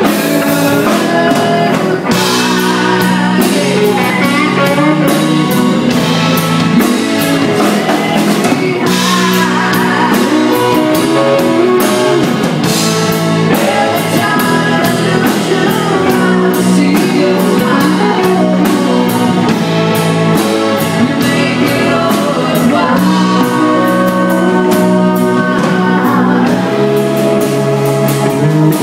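Live rock band playing loudly: electric guitar, keyboards and drum kit, with a woman singing over them.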